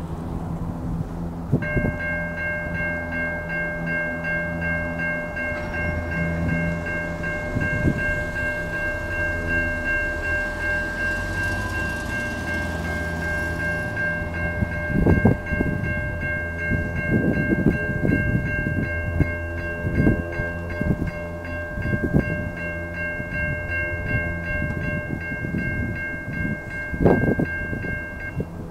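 Electronic level-crossing warning bells ringing steadily. They start a couple of seconds in as the crossing activates and cut off just before the end. Under them is a low rumble with a few heavier thumps in the second half.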